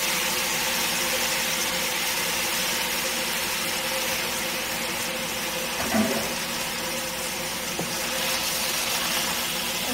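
Washed spinach hissing and sizzling as it wilts in a hot, dry nonstick pan, over a steady low hum. A short knock comes about six seconds in.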